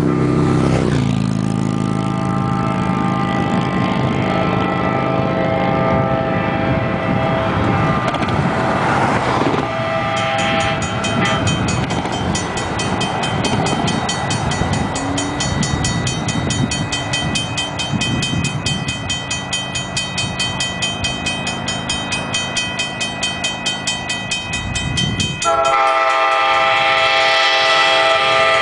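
An approaching diesel locomotive's multi-chime air horn sounds over a grade-crossing warning bell, which starts ringing rapidly about a third of the way in. A louder horn blast begins near the end as the train nears the crossing.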